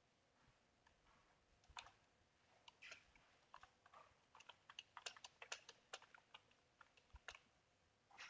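Faint computer keyboard typing: scattered keystrokes that pick up about two seconds in and come fastest a little past the middle.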